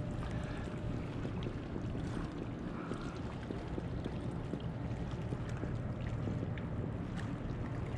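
Steady wind and water noise around a small kayak, with a few faint light clicks.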